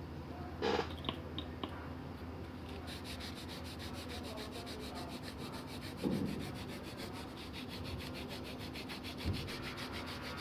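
Fast, even rubbing or scratching strokes, several a second, begin about three seconds in over a steady low hum. There are a few small clicks near the start and two dull thumps later.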